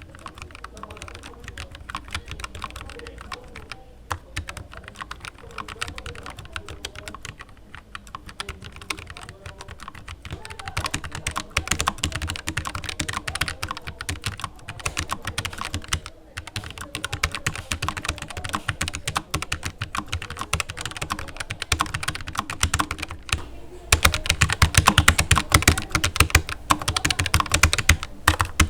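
Typing on a Keychron K1 v4 low-profile mechanical keyboard at three strengths. It starts as light, gentle typing. About ten seconds in it turns to normal typing, louder. At about 24 seconds in it becomes heavy, hard-hitting typing, the loudest clacking of the three.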